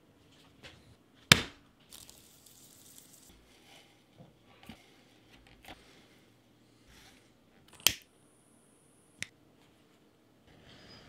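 Hand-stitching leather: scattered sharp clicks and taps and short rustles as thread is handled and pulled through the leather, the loudest click about a second in.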